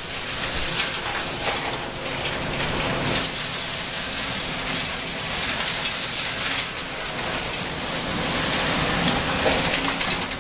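Vacuum truck's suction hose pulling debris out of an excavated vault: a steady rushing hiss with a dense crackle of material passing through the rigid pipe.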